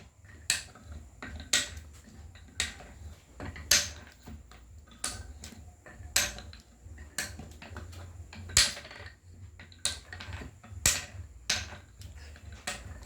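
Tower of Hanoi discs being lifted off and set down on the pegs one move at a time during a timed four-disc solve, giving sharp clacks about once a second.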